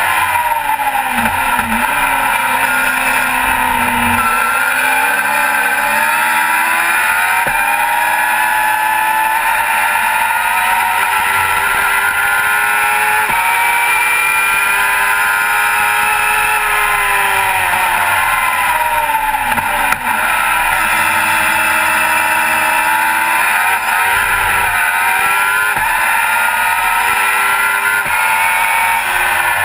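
Race car engine under hard racing load, recorded from on board, its pitch climbing through the gears and dropping sharply several times under braking and downshifts, over a steady rush of wind and spray noise.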